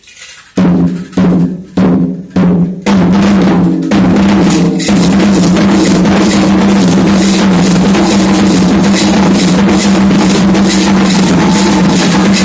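Candomblé atabaque hand drums: about five separate strokes roughly half a second apart, then loud, fast continuous drumming from about four seconds in.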